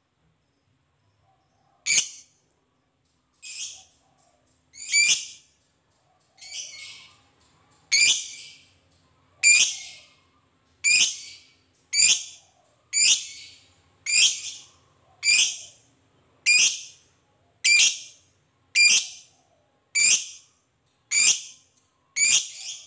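Lovebird giving a series of short, harsh, high-pitched chattering calls, about one every second or so, starting about two seconds in.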